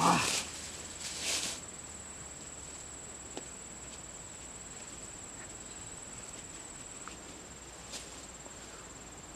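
A plastic bag rustles in two short bursts during the first second and a half as it is unwrapped by hand. After that only a steady high-pitched insect drone remains, with a few faint ticks of handling.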